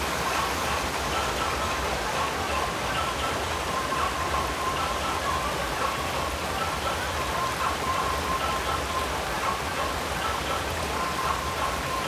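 Shallow, rocky mountain stream rushing over stones close by: a steady, even hiss of running water.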